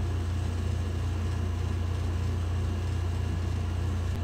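A steady low hum that holds even and unchanging, with no other event.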